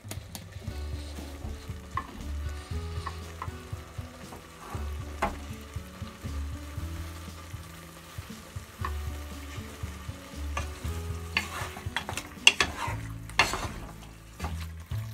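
Wooden spatula stirring beef chunks in tomato sauce in a pot on the stove, the sauce sizzling as it cooks onto the meat, with scattered clicks of the spatula against the pot. A louder stretch of scraping and sizzling comes near the end.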